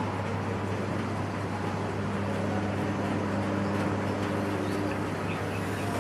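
A steady engine hum with road and wind noise, like a vehicle on the move.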